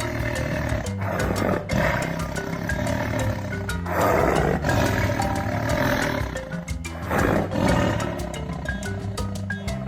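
A big cat roaring several times over background music with a beat.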